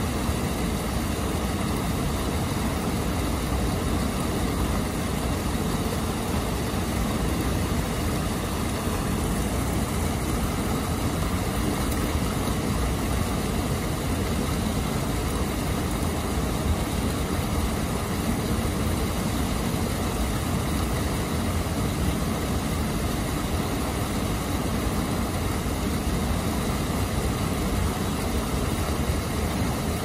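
Water pouring over a weir into a foaming plunge pool: a steady, unbroken rush with a deep rumble underneath.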